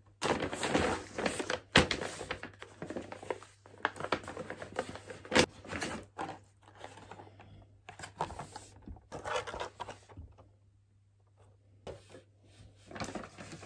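Paper shopping bag rustling and crinkling as packaged items are pulled out of it, with sharp knocks of small cardboard boxes set down on a tabletop, loudest about 2 and 5.5 seconds in.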